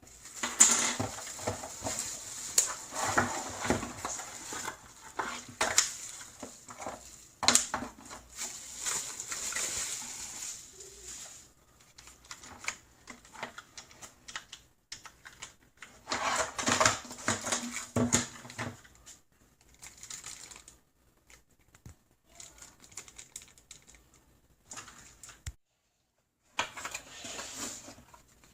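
Typing on a Redragon K556 mechanical keyboard with brown switches: rapid clacking keystrokes in bursts, a long one of about twelve seconds, then shorter runs with pauses between.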